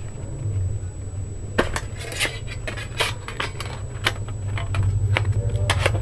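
Thin metal tin box clinking and scraping as its contents are handled and its lid is fitted and shut: a scattered series of sharp metallic clicks, more of them near the end, over a steady low hum.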